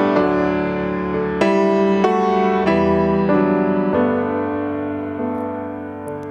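Grand piano playing a slow instrumental passage of sustained chords, struck about once a second and left to ring, fading near the end.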